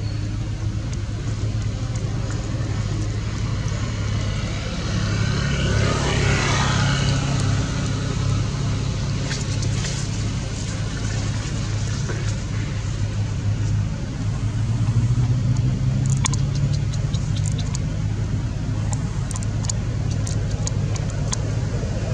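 Steady low engine rumble of a nearby motor vehicle, swelling briefly about six seconds in; a few faint clicks in the second half.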